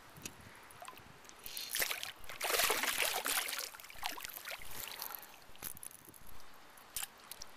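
Hooked smallmouth bass thrashing at the water's surface, splashing hardest from about two to three and a half seconds in, then lighter splashes and drips.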